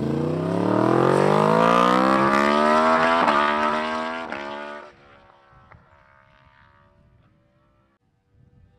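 Yamaha R1's crossplane inline-four, fitted with a full titanium Akrapovic Racing Line exhaust with no dB killer, accelerating hard, its note climbing steadily in pitch for about four seconds with a few sharp cracks. The sound drops off abruptly about five seconds in and fades away into the distance, nearly silent near the end.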